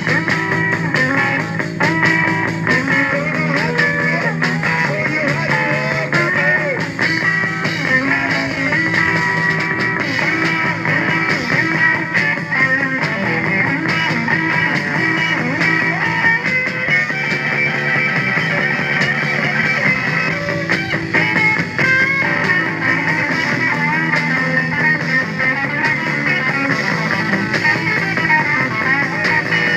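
Rock band playing live, with guitar to the fore.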